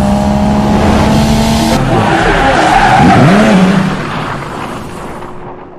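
A car engine running at a steady high note with tyres squealing; about two seconds in it turns to a screech with a pitch that dips and rises, then the whole sound fades out.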